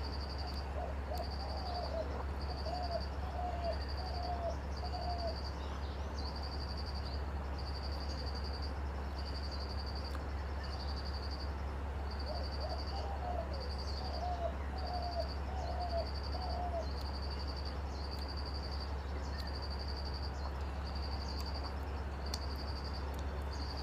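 Outdoor morning ambience: an insect, likely a cricket, chirps in a high, even pulse repeating a little faster than once a second. Twice a bird calls a run of five or six short notes, over a steady low hum.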